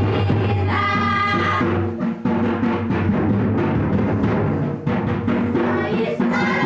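Mundari folk dance music: group singing over steady drumming. The voices drop out about two seconds in, leaving the drums, and come back near the end.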